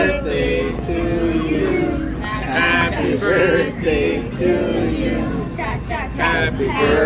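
A group of men's and women's voices singing a birthday song together.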